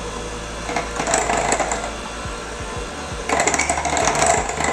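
Electric mixer running with its beater churning a thick clay-and-cacao paste in a glass jug. There are two louder stretches of churning and scraping, about a second in and again after three seconds.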